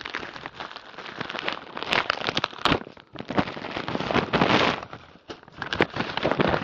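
A packaging bag crinkling and rustling in uneven spells as it is opened and rummaged through, with brief lulls.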